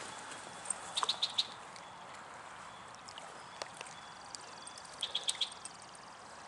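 A small bird chirping in two quick runs of high notes, about a second in and again about five seconds in, over the steady rush of a trout stream, with a few light clicks.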